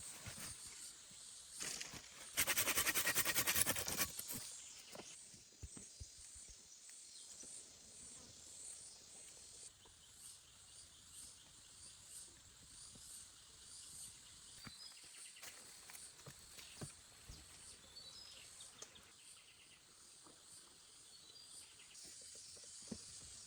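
Forest ambience with a steady high insect drone, broken about two seconds in by a loud rasping sound lasting about a second and a half, with scattered small knocks and snaps afterwards.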